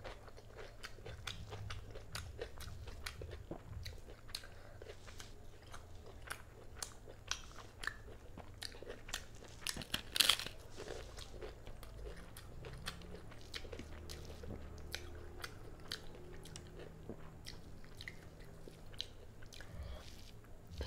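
Close-miked eating sounds: wet chewing and mouth clicks as rice and chicken curry are eaten by hand, with one loud crunchy bite of papad about ten seconds in.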